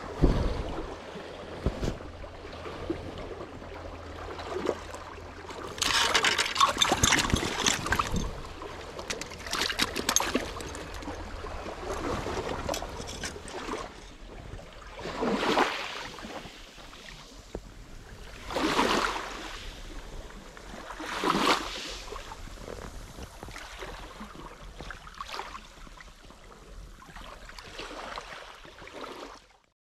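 Small waves washing up and draining back over a gravel beach, with several louder washes that swell and fade over a second or two each.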